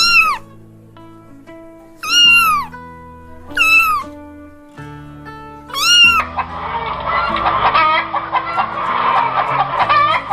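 A domestic cat meowing four times, each meow rising then falling, over background music. About six seconds in, a flock of chickens starts clucking continuously.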